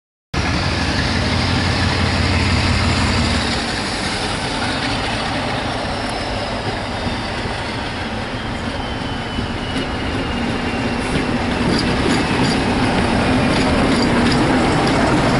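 Diesel locomotive approaching and passing close by, its engine running, with a high whine that falls slowly in pitch. The wheels click over the rail joints as it goes by near the end.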